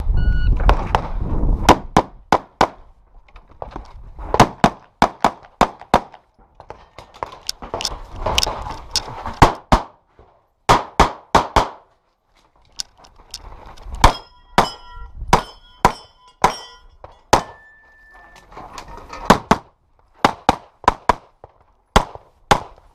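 Pistol shots fired in quick strings with short pauses between, as a shooter works through a practical pistol stage. Partway through, several hits set steel targets ringing.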